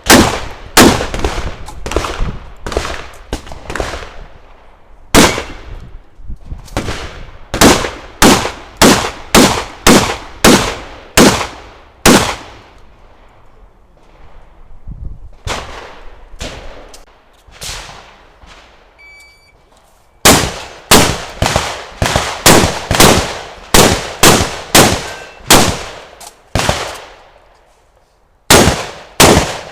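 Semi-automatic shotgun fired in quick strings of shots, about two a second, each shot sharp and echoing. Short pauses between strings fit reloading or moving between target arrays on a practical shooting stage.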